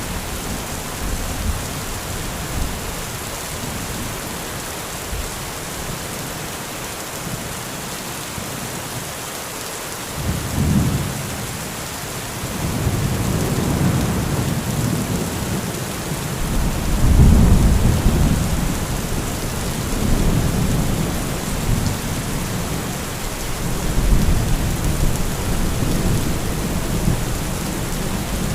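Steady heavy rain, with rolling thunder rumbling in about ten seconds in, swelling to its loudest a little past halfway and rumbling again near the end.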